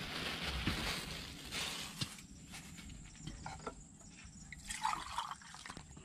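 A hand squeezing and mixing wet grated coconut in a plastic basin, a wet rustling for about the first two seconds, then quieter with a few small clicks and drips: the grated coconut being kneaded to press out coconut milk.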